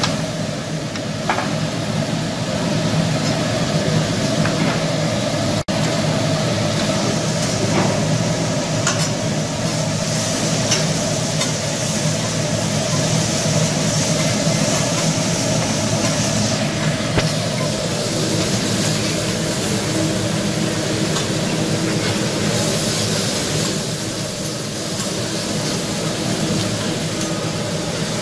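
Chicken and vegetables sizzling on a hot teppanyaki flat-top griddle, over a steady hum, with a few clicks of a metal spatula against the steel.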